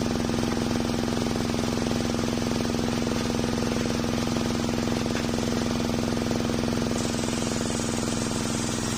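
Homemade engine-driven circular sawmill running at a steady pitch while its blade rips an old waru (sea hibiscus) log into boards.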